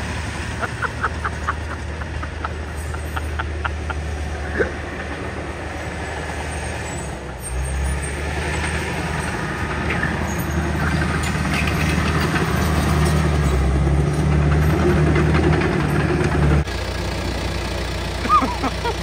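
Backpack leaf blower's two-stroke engine running steadily while it blows loose dirt, louder from about seven seconds in. Near the end it cuts off suddenly, leaving a lower, steady engine hum.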